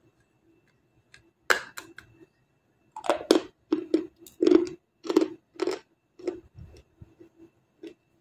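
Crisp crunching as a thin, brittle white layer of earthy material is bitten off and chewed: two sharp snaps about a second and a half in, then a run of loud crunches from about three to six seconds, tapering off into softer chewing.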